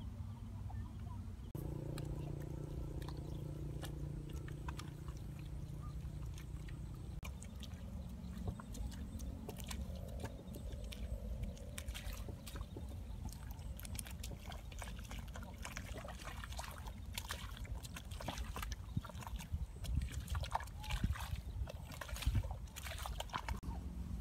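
Wet mud squelching and sloshing as hands scoop and pack waterlogged mud, with many short clicks and slaps in the second half. A steady low hum runs for several seconds near the start.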